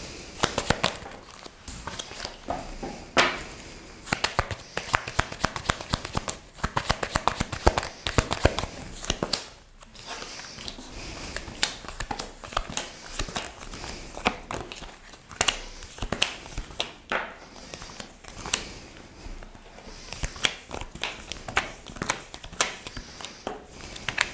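Tarot cards shuffled by hand and laid down on a tabletop: runs of quick card clicks and slaps, with pauses between the runs.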